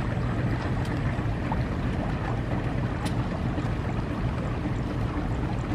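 Diesel locomotive engine running with a steady low rumble as the locomotive slowly reverses a train carrying a rail crane.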